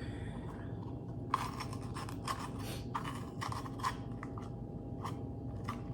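Kitchen knife cutting through a vegetable onto a cutting board, dicing: a dozen or so irregular sharp cuts, starting about a second in.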